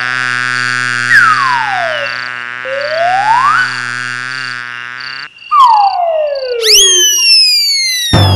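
Cartoon sound effects: whistle-like pitch glides, one falling and one rising, over a steady droning music bed with a pulsing high beep. The drone cuts off about five seconds in, followed by a burst of falling whistles and a sudden thump near the end.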